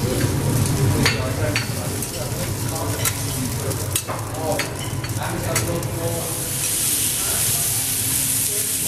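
Food frying on a teppanyaki hotplate, with metal spatulas clicking and scraping against the steel. About six and a half seconds in, a louder, higher hiss of sizzling starts and holds.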